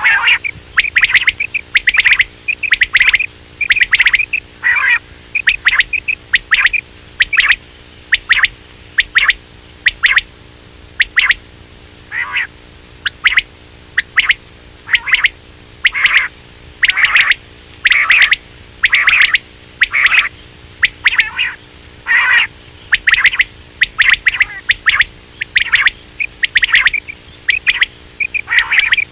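Quail calling: a long run of short, sharp calls, about one to two a second, some in quick pairs, with a faint steady hum beneath.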